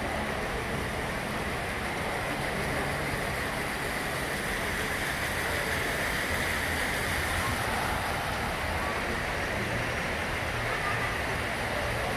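Steady rush and splash of water from decorative fountain jets.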